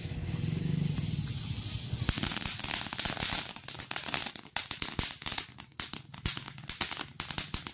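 Diamond Fireworks mini fountain burning: from about two seconds in, a dense, rapid crackling of many tiny pops.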